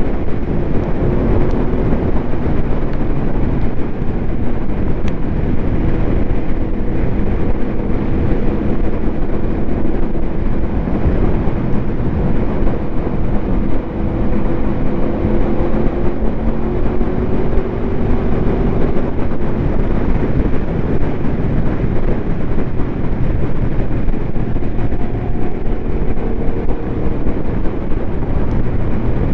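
Aprilia Tuono V4's V4 engine, breathing through an SC Project SC1-R carbon slip-on exhaust, running under way at a steady, moderate pace, its pitch drifting gently up and down with the throttle. Wind rushes over the microphone.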